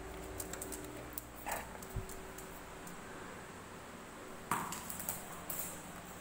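Small dog playing with a ball on a hard stone floor: scattered light clicks and taps, a low thump about a third of the way in, and a sharp knock about three quarters in, followed by a few more quick clicks.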